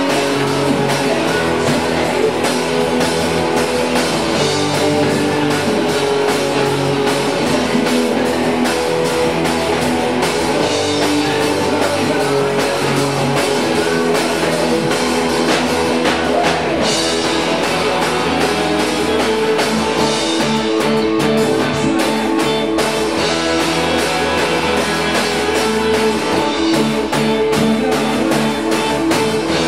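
Rock band playing live: electric guitars over a drum kit in a steady groove.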